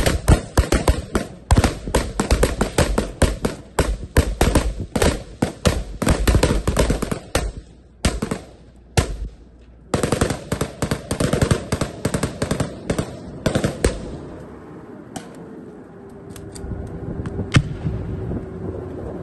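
Rifle fire from several soldiers' rifles at close range: rapid, overlapping shots for about seven seconds, a short lull with a few single shots, another dense stretch, then scattered single shots thinning out over the last few seconds.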